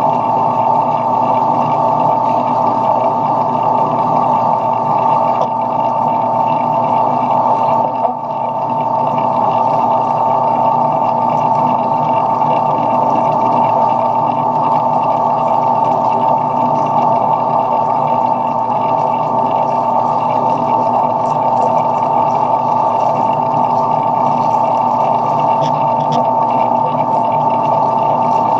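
Metal lathe running steadily with a constant high whine, while machining small aluminium pieces. The sound briefly dips about eight seconds in.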